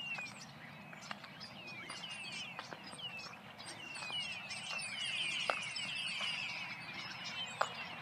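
A large flock of small birds calling together: many short, high, falling chirps overlapping, thickest about five to six seconds in, with a few faint ticks.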